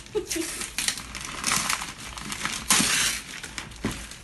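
Brown wrapping paper and tape being pulled and torn off a cardboard parcel: a run of irregular crinkling, ripping rustles, the loudest a little under three seconds in.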